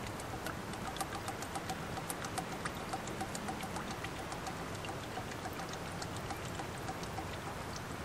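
Hydraulic fluid dripping and trickling from a backhoe's opened hydraulic filter housing into a plastic bucket: a fast, irregular patter of drops over a steady trickle.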